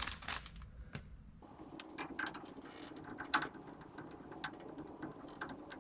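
Scattered light clicks and taps of hand work on a drum brake, as a new wheel cylinder is fitted to the backing plate.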